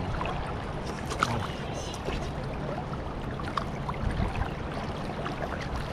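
Steady rushing noise of flowing river water, with a few faint clicks.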